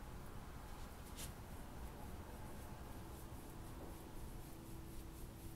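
Faint scratchy brushing of a paintbrush laying acrylic paint onto a wall, with a few short separate strokes.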